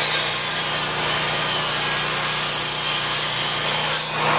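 Corded handheld circular saw running and cutting along an old wooden deck plank, a steady high-pitched whine over a low motor hum, briefly easing just after four seconds in.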